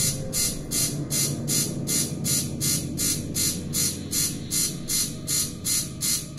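A break in the dance music track: a sharp high tick repeating evenly about four times a second over a low steady drone.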